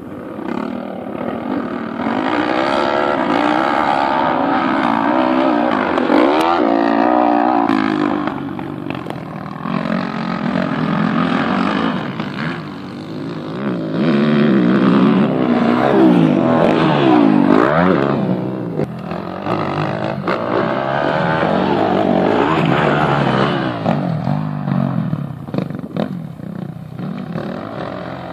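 Several motocross dirt bike engines revving as the bikes race around a dirt track, their pitch rising and falling again and again and overlapping one another.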